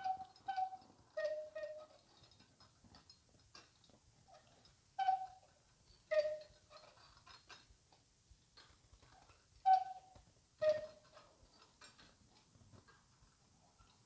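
Cuckoo clock bellows and pipes sounding the two-note cuckoo call, a higher note then a lower one, three times about four to five seconds apart; the first call has each note doubled. Light clicks and taps of the cranked gears, cams and wire levers come between the calls.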